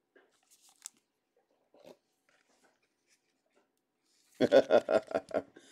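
Faint scraping and ticking of trading cards being slid and flipped through by hand. Near the end comes a short, loud burst of a man's voice in quick pulses.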